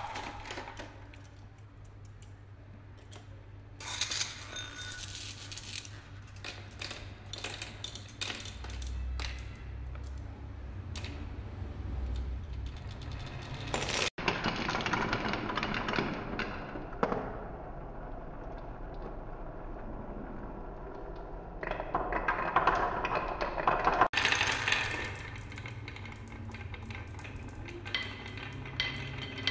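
Glass marbles rolling down wooden marble-run tracks, clattering and clicking against the wood and against each other, with many sharp clinks. The sound changes character twice, about 14 and 24 seconds in, as the run moves between carved wave tracks and a wooden spiral track.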